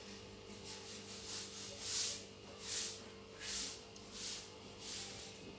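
A person's faint, rhythmic hissing mouth sounds while eating, about one every three-quarters of a second, over a low steady hum.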